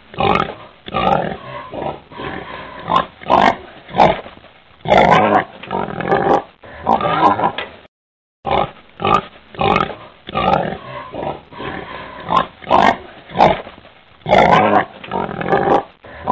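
Wild boar grunting in a rapid, irregular series, a recording used as a hunting lure call. It breaks off for about half a second midway, then carries on.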